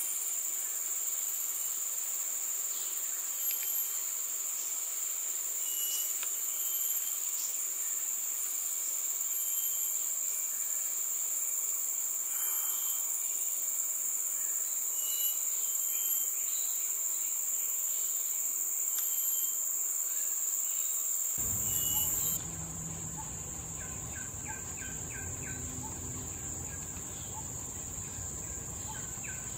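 Steady, high-pitched drone of forest insects, with short chirps repeating about once a second. About 21 seconds in the sound shifts: a low rumble comes in and a quicker run of short chirps is heard.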